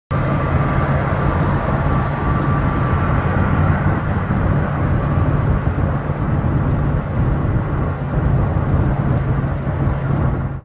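Steady, loud vehicle rumble with a low hum underneath.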